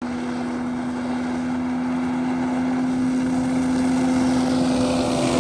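Suzuki DT65 two-stroke outboard motor running under way at a steady pitch, slowly getting louder.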